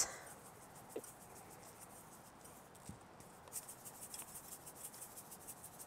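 Salt and pepper shakers being shaken: faint, rapid scratchy rattling that grows stronger from about three and a half seconds in.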